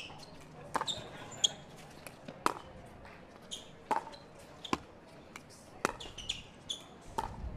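Pickleball rally on a hard outdoor court: a string of sharp pops from paddles striking the hard plastic ball and the ball bouncing on the court, about one every half second to second, with a few short high sneaker squeaks between them.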